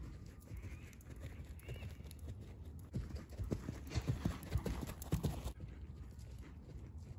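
Horse's hooves clip-clopping in a run of uneven knocks, loudest a few seconds in, then the sound drops away suddenly.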